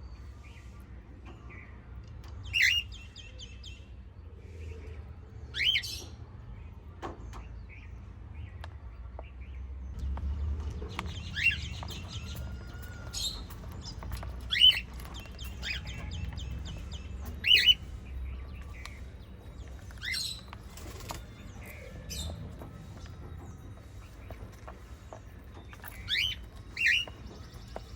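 Pet cockatiels and budgerigars calling: loud, sharp chirps every few seconds over fast trilling chatter. A low steady hum runs underneath.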